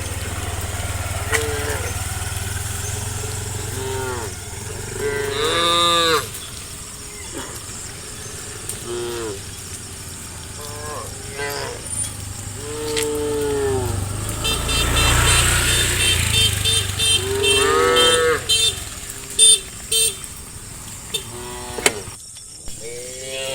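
A herd of cattle mooing: many short, rising-and-falling moos from different animals, one after another and sometimes overlapping, over a low rumble that swells twice.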